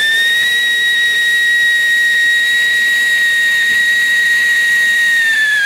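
Siren anar, a whistling fountain firework, giving a loud steady whistle over the hiss of its spark spray. The pitch begins to drop near the end as it burns down.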